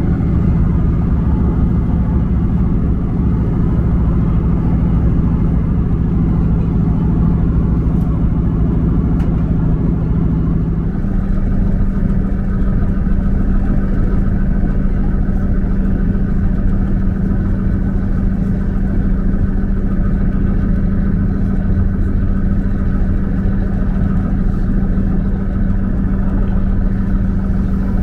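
Diesel engine of a passenger train running under way, heard from inside the carriage: a steady drone whose note shifts about eleven seconds in.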